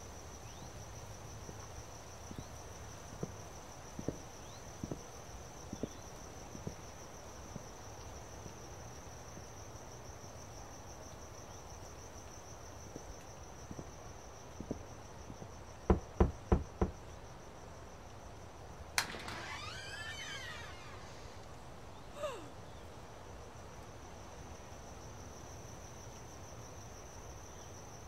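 Crickets chirping in a steady high trill, with four sharp knocks on a front door a little past halfway, followed by a short scraping noise.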